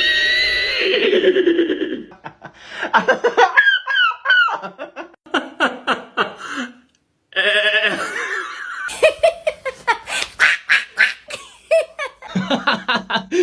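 Cartoonish laughter-like vocal sound effects: rapid pitched cackles and chuckles in two runs, broken by a short silence about seven seconds in.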